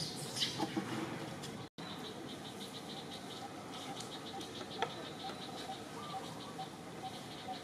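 Outdoor ambience with insects chirping in rapid pulses, joined after a few seconds by a short call repeated about twice a second, with a few faint clicks. The sound cuts out for an instant about two seconds in.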